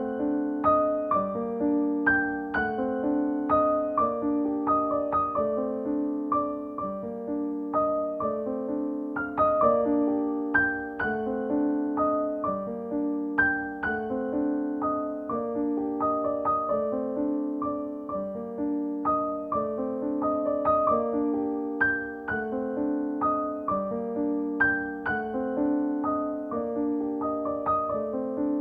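Background music: a gentle solo piano piece with evenly struck notes in a steady repeating pattern.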